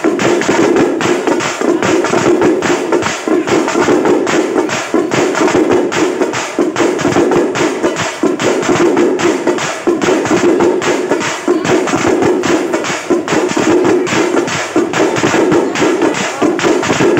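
Loud, fast drumming, many strokes a second without a break.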